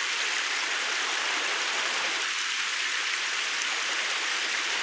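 Stream water running over the rock slabs at the falls: a steady, even rush of water, mostly high-pitched.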